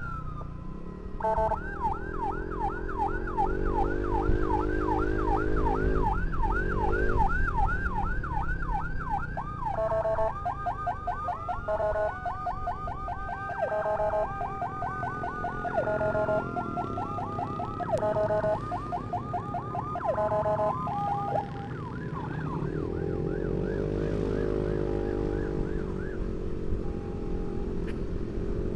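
Emergency sirens yelping in fast repeated sweeps, overlapping with a slower wailing siren and a few short blaring blasts, from the ambulance and its motorcycle escort. A motorcycle engine revs up twice underneath.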